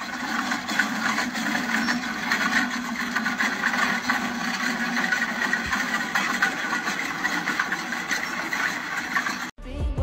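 Pickup truck running at low speed while towing a boat on a small wheeled cart, with a steady rolling, rattling noise along the pavement. It cuts off suddenly near the end.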